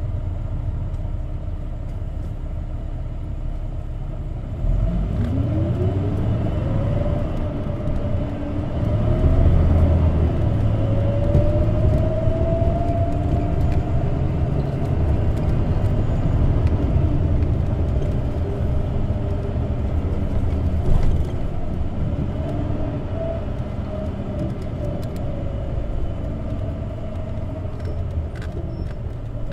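Isuzu Erga CNG (natural-gas) city bus heard from inside the cabin: after a few seconds of steady running, the engine opens up about five seconds in and its pitch climbs. It climbs again after a shift, then levels off and eases back to cruising in the last third.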